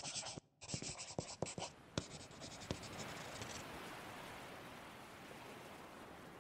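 Pen scratching on paper in quick strokes with a few sharp taps. The scratching stops a little past halfway, leaving a soft, even hiss.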